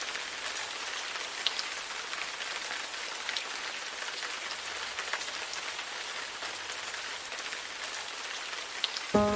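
Steady rain falling, a dense hiss with scattered louder individual drops. Music comes in right at the end.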